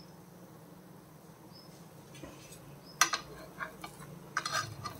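Steel spatula clinking and scraping against a flat nonstick pan as it is worked under frying tikkis to turn them. It starts about three seconds in with one sharp clink, the loudest sound, followed by a few lighter taps and scrapes.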